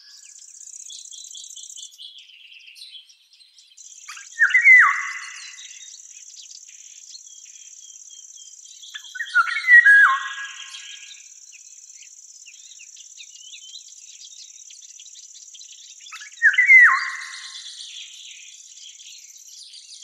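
A bird sings a short phrase of a few quick falling notes three times, about every six seconds, over a steady high-pitched insect trill from crickets. The trill drops out briefly early on. Faint twittering is heard between the phrases.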